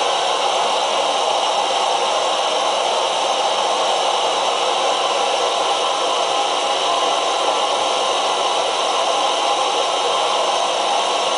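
Primus EtaPower MF stove burner running on an LP gas canister: a steady, unbroken rushing hiss under a pot of water that is nearly at the boil.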